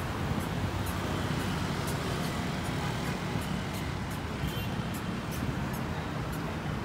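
Steady rumble of city road traffic, with car engines and tyres passing on a busy roundabout.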